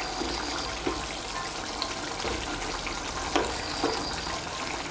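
Fish curry bubbling in a nonstick kadai over high heat while chopped coriander is stirred in with a spatula, which clicks and scrapes against the pan a few times.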